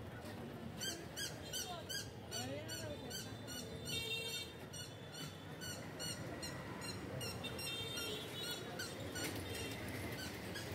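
Street ambience with a run of short, high squeaks, about two or three a second, from about a second in until near the end.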